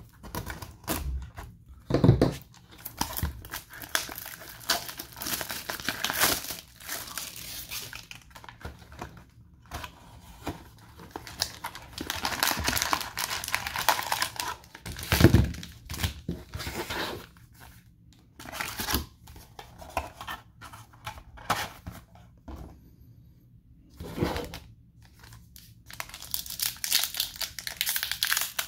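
Plastic shrink wrap on a cardboard trading-card box being slit with a knife and peeled off with crinkling and tearing, then the box opened and foil card packs handled and torn open. A few dull thumps stand out, about two seconds in, around the middle and near the end.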